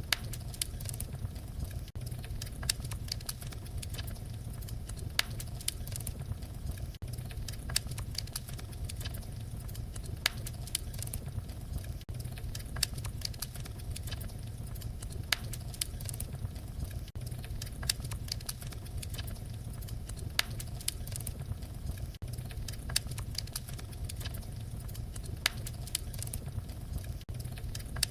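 Fireplace fire crackling, with frequent irregular sharp pops over a steady low rumble.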